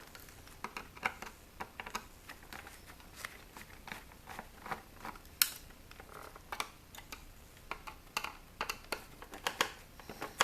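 Scattered small clicks and taps of hands and tools working on the plastic and metal parts of a CD changer being taken apart, irregular, with one sharper click about five and a half seconds in.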